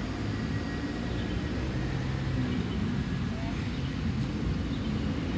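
Outdoor ambience: a steady low rumble of distant traffic, with faint voices in the background.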